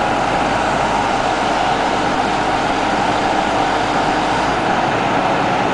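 SUNTON SE220 amphibious excavator's engine running steadily as the machine drives its pontoon tracks up steel loading ramps onto a truck trailer.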